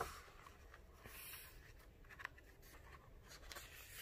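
Near silence with faint paper rustling from a hardcover picture book being handled and its page turned, a little louder right at the start, with one soft tick a little over two seconds in.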